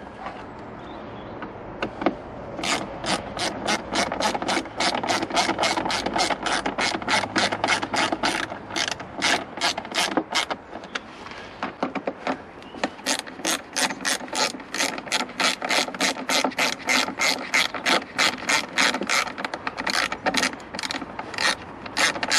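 Small hand ratchet with an extension clicking steadily, about four clicks a second, as two screws are turned in. There are two runs of clicking, one per screw, with a pause of about two seconds between them.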